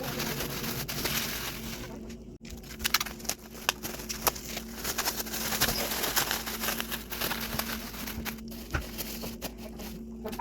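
Thin plastic bags rustling and crinkling while meat is handled and portioned, with many quick irregular crackles over a steady low hum.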